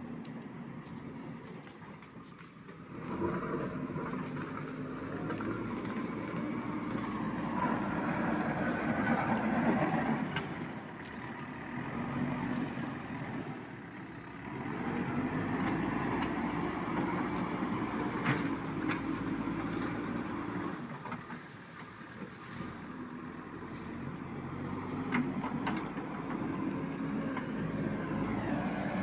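Diesel engine of a JCB backhoe loader working, swelling and easing every few seconds as the front bucket pushes branches and debris along the road, with a few scattered knocks.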